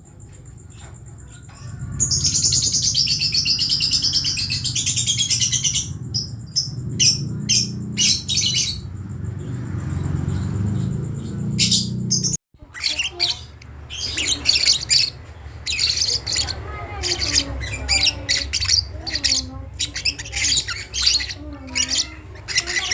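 Young lovebird chirping and chattering in short, high calls. A dense run of chatter starts about two seconds in and lasts about four seconds; after a sudden break halfway through, quick repeated chirps follow.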